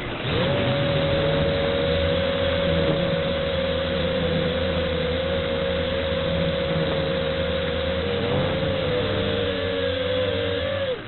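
A multirotor drone's electric motors and propellers whine steadily, rising to pitch just after the start, over wind noise on the microphone. The propellers are damaged. Near the end the whine wavers and splits into close tones, then cuts off sharply at the very end.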